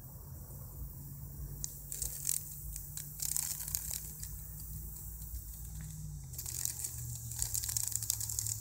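A cicada struggling under a yellow jacket's attack gives intermittent scratchy, raspy buzzing bursts, in clusters about two seconds in and again from about six seconds on. Under them runs a low steady hum that drops slightly in pitch about six seconds in.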